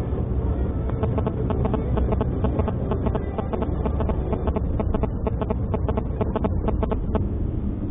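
Steady low road and engine rumble inside a moving car's cabin. From about a second in until about seven seconds, faint rhythmic music with a clicking beat plays from the car radio.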